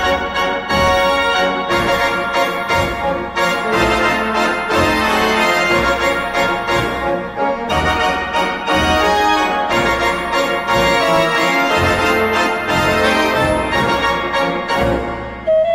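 Background music played on an organ-like keyboard, with a brief break near the end as a different piece starts.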